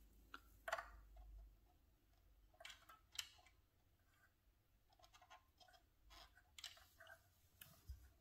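Near silence with faint, scattered small clicks and scratches: fingers handling sewing thread against the plastic body of a mini sewing machine while threading it.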